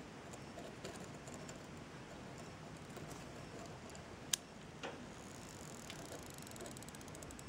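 Faint small ticks and clicks of a soldering iron and solder wire tinning the slot of a tungsten bead, with one sharp click about four seconds in and a faint fast crackle near the end.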